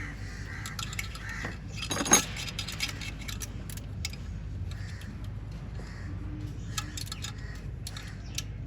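Metal tools and car parts clinking and clicking during hands-on repair work, with one sharp clack about two seconds in, over a steady low hum.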